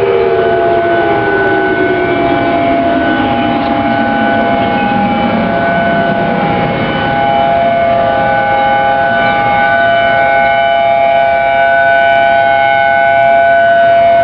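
Several outdoor civil defense sirens sounding together at different pitches, the tsunami warning signal. One winds down in a falling pitch over the first six seconds while the others hold steady tones.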